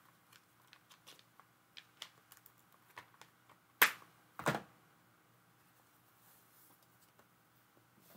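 Light, scattered clicks and taps of paper and small craft supplies being handled on a desk, with two louder sharp clicks about four seconds in, after which it goes quiet.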